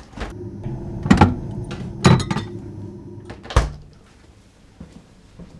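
Fridge door pulled open, a few knocks and clinks as a beer is taken out, then the door shut with a thump about three and a half seconds in. A low hum runs while the door stands open.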